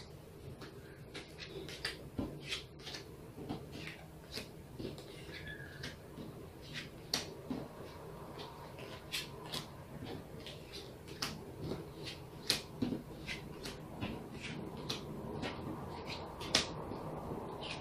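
Playing cards being taken from a pile and set down one by one on a tabletop: a string of light, sharp clicks and snaps at irregular intervals, over a faint low hum.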